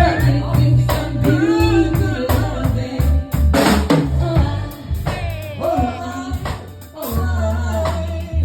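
Live band playing: drum kit with kick and snare over a heavy, steady bass line, with a bending melody line on top.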